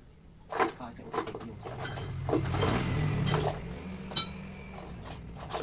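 Metal hand tools clinking and knocking, about six separate sharp clinks spread through a few seconds, as a motorcycle's rear wheel is worked on. A low rumble swells and fades under them in the middle.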